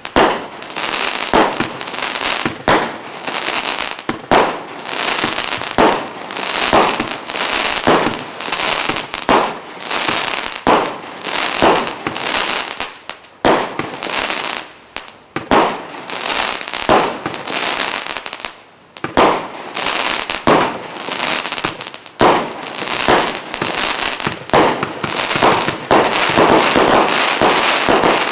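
Black Cat Centurion multi-shot firework cake firing shot after shot, about one a second, each one a sharp bang followed by crackling stars. Near the end the shots merge into a denser, continuous crackling finale.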